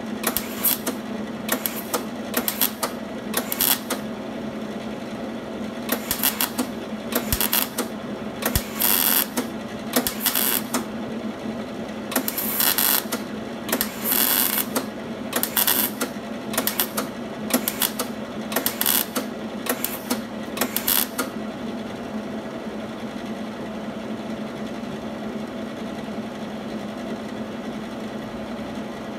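MIG welder laying short tack and stitch welds on sheet-steel car body structure: a run of brief welding bursts, each under a second, about twenty in the first twenty seconds, then stopping. A steady low hum runs underneath throughout.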